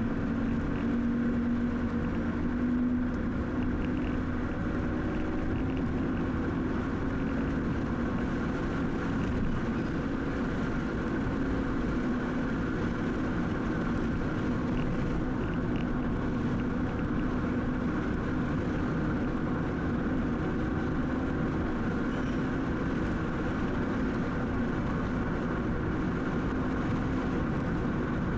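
Car driving at a steady speed: a constant drone of engine and tyre noise, heard from inside the cabin.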